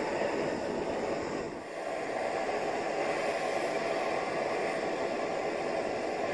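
Gas torch burner firing steadily into a small firebrick forge, a constant hiss while a knife blade is heated for hardening before quenching. The sound drops briefly about a second and a half in, then carries on.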